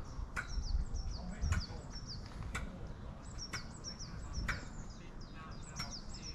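Small birds singing nearby: a run of quick, high, downward-sliding chirps repeated throughout, with sharp ticks about once a second.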